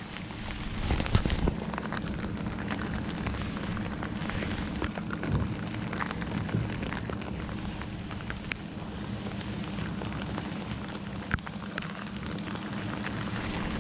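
Heavy rain falling, with many close drops ticking sharply, over a steady low hum.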